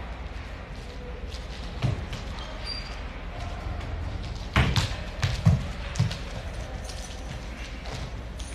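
Four or five dull thuds, scattered and irregular, the loudest about halfway through, over a steady low hum in a large, echoing hall.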